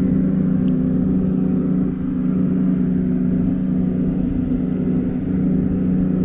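A steady low motor hum holding two fixed pitches, over wind rumbling on the microphone.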